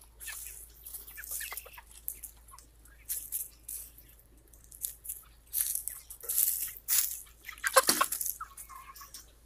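Seven-week-old Red Ranger broiler chickens clucking and calling in short, scattered bursts, with rustling and crunching among them. One louder, sharp sound comes about eight seconds in.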